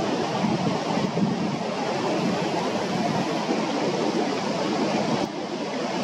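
Water spilling over a weir and churning into white water at its foot: a steady rushing.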